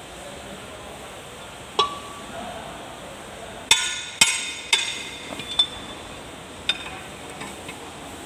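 Ringing metal clanks of a large steel spanner knocking against the gear and housing of an L1-185 tractor's rear-axle final drive. One clink about two seconds in, then three loud strikes about half a second apart near the middle, followed by lighter clinks.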